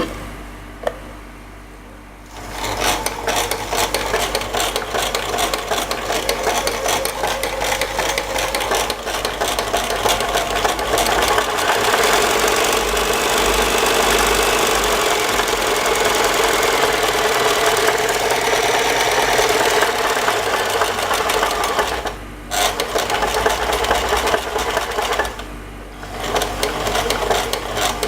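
Toyota 8001 electric free-arm sewing machine running and stitching with a fast, even clatter, starting about two seconds in and stopping briefly twice near the end.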